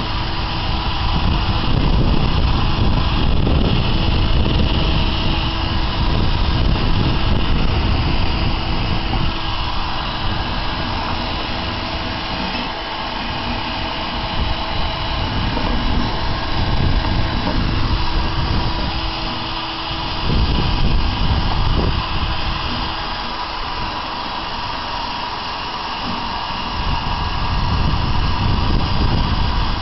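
Cordless drill spinning a wire cup brush against an alloy wheel, stripping it back to bare metal: a steady motor whine over a rough scraping hiss, its level rising and falling.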